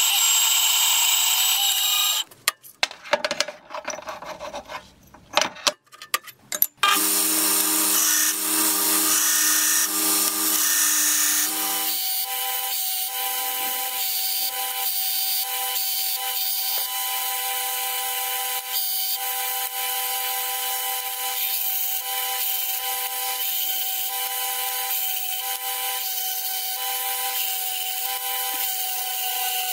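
Vertical bandsaw cutting through a piece of old steel file. It drops almost to quiet, with a few clicks, for about four seconds, then cuts again. About twelve seconds in, a belt grinder takes over, grinding the cut steel piece with a steady whine and rasp.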